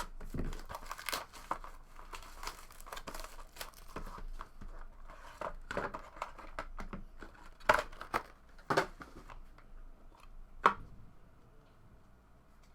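Trading card packaging being torn open and crinkled by hand, with a few sharp clicks in the second half.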